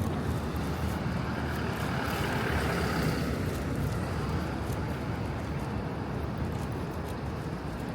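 City street traffic: a steady low rumble of vehicles, with one swelling and fading about two to three seconds in.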